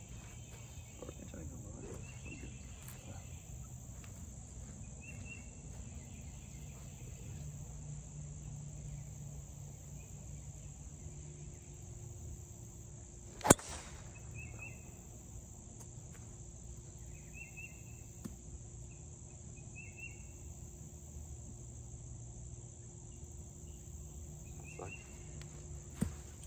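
A golf driver striking a ball off the tee once, a single sharp crack about halfway through. Beneath it runs a steady high-pitched insect drone, with a few short chirps here and there.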